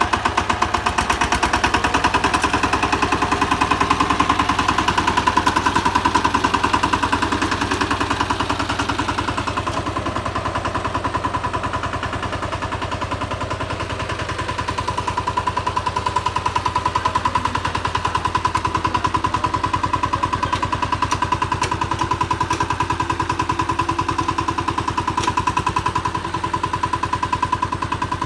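Power tiller's single-cylinder diesel engine running steadily with a rapid, even chugging beat; it eases off slightly for a few seconds midway, then picks up again.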